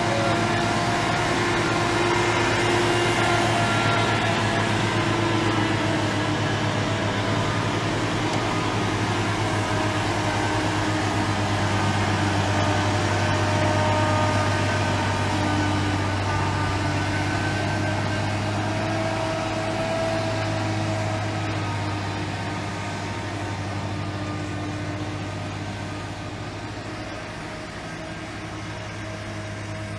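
A large engine running steadily: a low hum with higher tones that drift slowly in pitch, growing somewhat quieter over the last third.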